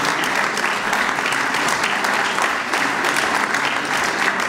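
Audience applauding: many people clapping steadily and fairly loudly.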